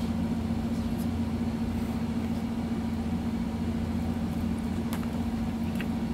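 A steady low machine hum with one strong, even tone, and a few faint clicks.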